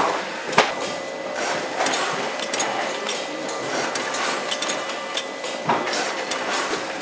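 Conveyor packaging and labelling machinery running: a steady hum with irregular mechanical clicks and clacks. There is a sharp clack about half a second in and another just before the six-second mark.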